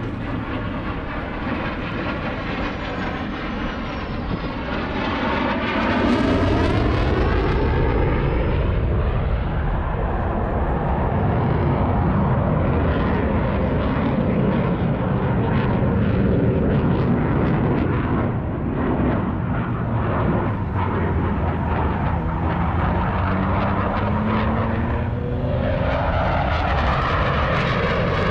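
Jet aircraft flying past, a loud steady engine sound that swells about six seconds in, with whining tones that slide in pitch as the aircraft come and go.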